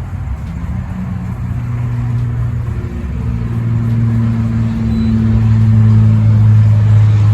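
A motor vehicle's engine running steadily with a low hum, growing gradually louder through the second half.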